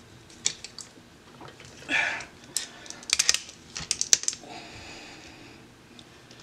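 Small ratchet wrench clicking in short runs as it turns the drive screw of a pistol sight pusher, pressing the sight across its dovetail, with a brief metal scrape about two seconds in.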